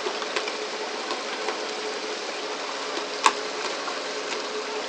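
Fishing boat's engine running steadily under a hiss of rushing water, with scattered light clicks and one sharp knock about three seconds in.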